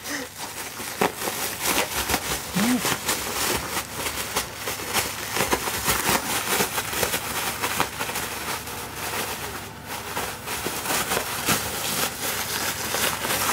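Plastic air-cushion packing bag crinkling and crackling irregularly as a small dog bites it and pushes it across a carpet.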